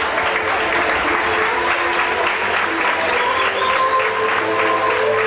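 Crowd applauding in a hall, with music playing underneath that becomes clearer in the second half.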